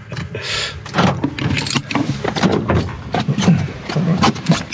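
Irregular clicks and knocks inside a camper van's cabin, over a low hum.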